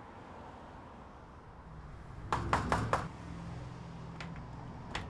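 Knocking on a diamond-mesh security screen door: four quick, sharp knocks a little over two seconds in, over a low steady hum.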